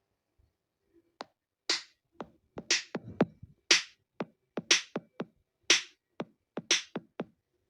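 Electronic drum-machine beat played through the OnePlus Nord CE 4 smartphone's loudspeaker. It starts about a second in, with a crisp hit roughly once a second and short low thumps between.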